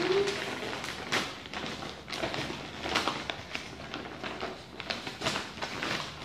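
Gift-wrapping paper crinkling and rustling as it is pulled open by hand, with many irregular sharp crackles.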